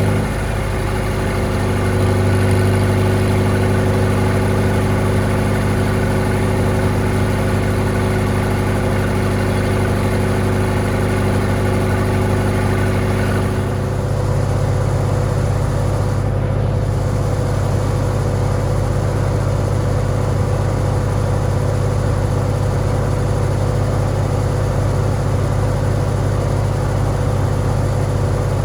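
Farmall tractor engine running steadily. About halfway through its sound changes: the higher tones drop away, leaving a deep, even drone with a rougher edge.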